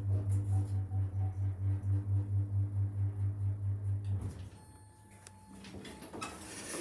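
Lift drive motor giving a steady low hum with an even pulsing, which cuts off about four seconds in as the lift comes to a stop.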